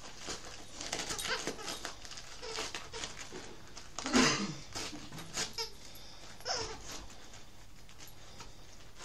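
A dog tearing and rustling gift wrapping paper with its mouth and paws, in a run of crinkly rips, with one louder short sound about four seconds in.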